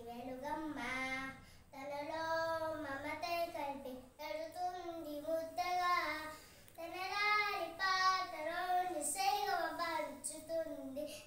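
A young boy singing a Telugu song about his mother, unaccompanied, in phrases of a few seconds with short breaks between them.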